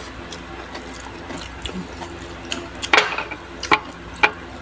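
Mukbang eating sounds: scattered crunches and clicks from chewing and handling crispy fried food and dishes, with a louder crackly crunch about three seconds in.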